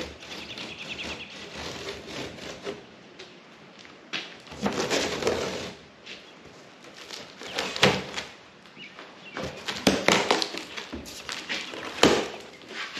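Knocks, thuds and scraping from a large cardboard tool-box carton being handled and pulled open, with a rustling scrape near the middle and several sharp knocks in the second half.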